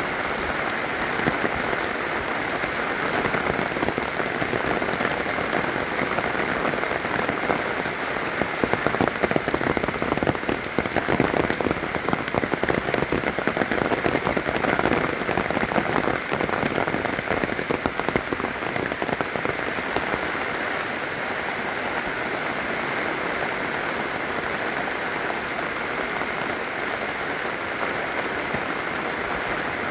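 Steady rain falling, with many close drop hits throughout. It grows a little heavier for several seconds in the middle, then eases back.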